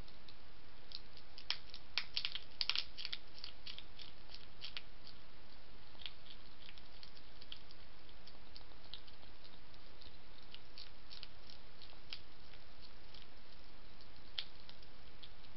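A European hedgehog crunches food from a dish: irregular sharp crunches and clicks, thickest about two seconds in and sparser after, over a steady background hiss.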